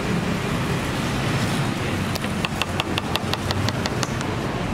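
Kitchen knife slicing a banana on a wooden cutting board: a quick run of sharp taps, about six a second, starting about two seconds in. Steady street traffic noise runs underneath.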